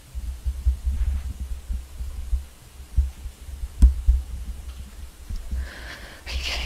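Uneven, pulsing low rumble from a handheld camera being moved about, with one sharp click about four seconds in and a short hiss near the end.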